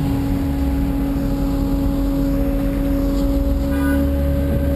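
Motor vehicle engine running close by: a steady droning hum over a low road rumble, with a brief clatter a little under four seconds in.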